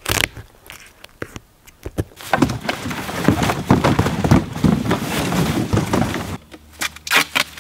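A few scattered light clicks, then empty cardboard boxes being thrown, knocked together and shoved across leaf-covered ground: a dense clatter of hollow thumps, scrapes and rustling that dies down a little after six seconds in.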